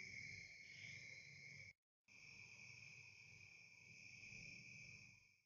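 Faint, steady chorus of crickets and other insects in a field, droning without a break in rhythm, cutting out briefly about two seconds in.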